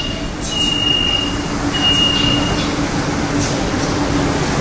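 Metro door-closing warning beeping: a high steady tone in pulses about a second long, twice in quick succession, stopping about halfway through. Under it runs the steady hum of the subway car.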